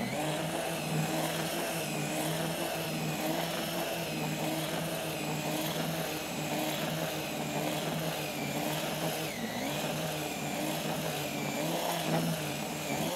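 Cordless drill with a mixing whisk running steadily, whisking dry groundbait in a plastic bucket; its motor pitch wavers slightly.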